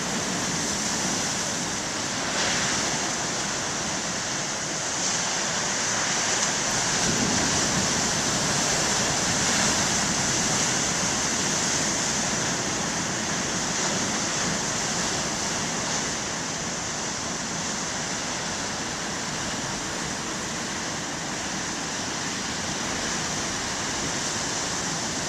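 Big ocean waves breaking on the shore: a continuous rush of surf that swells louder for several seconds a few seconds in, then eases off.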